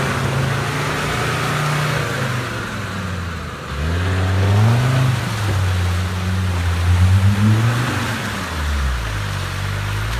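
Land Rover Defender's engine revving up and down under load as it churns through a deep mud puddle, with mud and water sloshing around the tyres. The engine note drops away briefly a few seconds in, climbs again, and falls off near the end.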